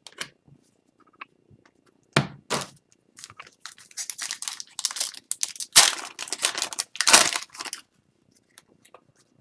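Two sharp taps about two seconds in, then crinkling and tearing of a foil trading-card pack wrapper as cards are handled, in crackly bursts loudest in the second half.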